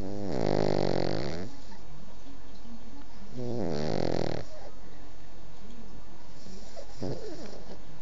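A sleeping pet snoring: two long snores about three and a half seconds apart, then a shorter, fainter one near the end.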